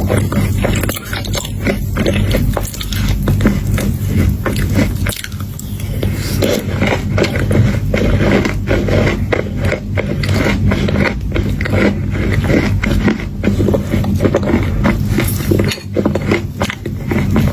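A person eating crunchy chocolate chunks: biting and chewing with dense crackling crunches, one after another.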